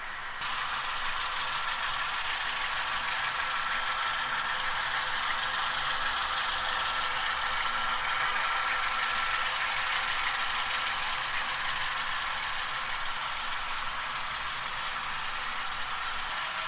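Several small-scale model locomotives running together on their track, a steady mechanical rattle of wheels and motors, mixed with the engine sounds of their onboard sound decoders.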